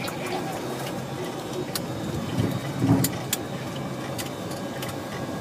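Cockpit noise of a Boeing 737-200 taxiing: a steady hum from its running Pratt & Whitney JT8D engines, with scattered light clicks and rattles and a low thump about three seconds in.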